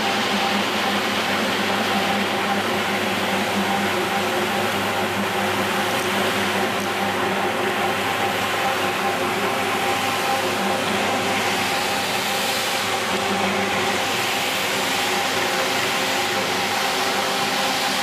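Double-brush carpet washing machine running: a steady motor hum with an even whirring noise that does not change.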